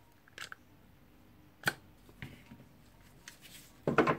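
Faint scattered metal clicks and a sharp click a little under two seconds in as pliers work the striker out of the cylinder of a Dewalt D25123 rotary hammer, then a cluster of louder knocks near the end.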